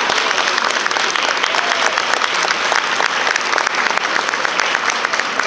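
Audience applauding: a dense, steady patter of many people clapping.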